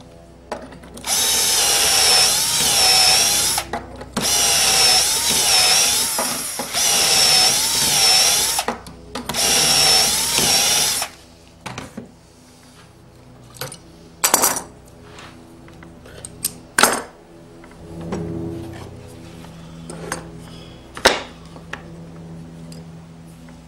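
Electric drill boring dowel holes into wood through a dowelling jig: four runs of a few seconds each, the motor's pitch wavering as it bites. Then scattered clicks and knocks as the metal jig and boards are handled, with the loudest knock near the end.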